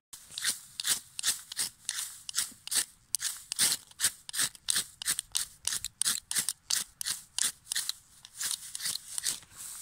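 Ferrocerium rod being scraped hard with a metal striker, a steady run of short scraping strokes at about three a second, showering sparks into dry grass tinder.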